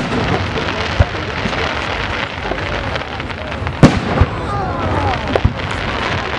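Fireworks display: sharp bangs of bursting fireworks, about five in all and the loudest about four seconds in, over a steady din of crowd voices.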